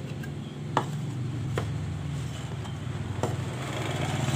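Three sharp metal clicks as long bolts are drawn out of the magneto cover of a Viar three-wheeler engine, over a steady low hum.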